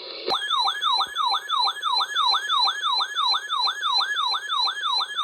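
Electronic alert siren from a weather alert receiver, starting abruptly after radio hiss. It is a rapid yelp that sweeps up quickly and slides down about three to four times a second, sounding as a new severe thunderstorm warning comes in.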